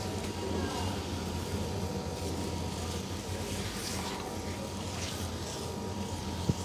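Steady low hum of street background noise, with one sharp click near the end.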